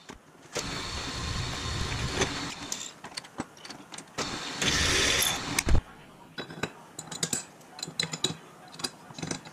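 Drill press running for the first few seconds, a brief burst of hiss about five seconds in, then scattered clinks and taps as the drilled steel bracket and its metal chips are handled.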